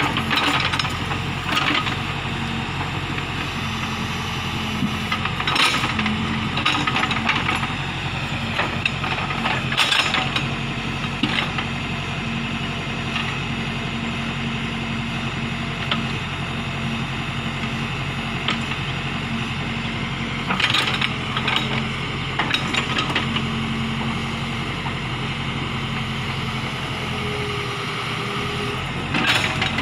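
Case backhoe loader's diesel engine running steadily, with scattered metallic clanks and knocks as the machine works.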